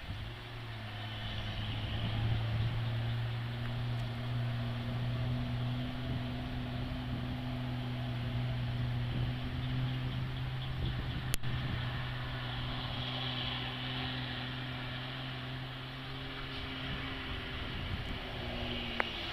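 Concrete mixer truck's diesel engine running at a steady pitch, with a sharp click about halfway through.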